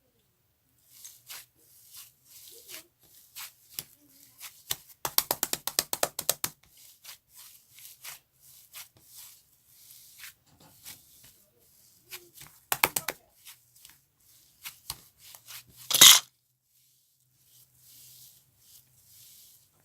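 Cloud slime being stretched and squished by hand, with soft crackling and tearing and a quick run of pops about five seconds in, another run near thirteen seconds, and one loud squelch near sixteen seconds.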